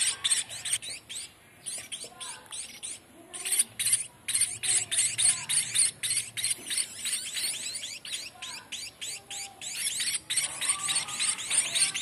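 Munia fledglings giving rapid, high-pitched begging calls, many notes a second, while being hand-fed. The calls break off briefly twice in the first few seconds.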